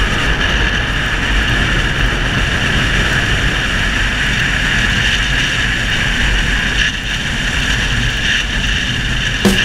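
Steady wind rush on a helmet-mounted camera while riding a Suzuki SV650 motorcycle at speed, with the bike's V-twin engine running underneath.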